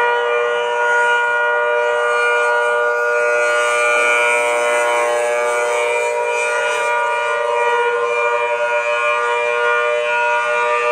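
Federal Signal Thunderbolt 1000T dual-tone outdoor warning siren sounding steadily, a loud held chord of tones. About four seconds in, a lower tone glides up to join the chord.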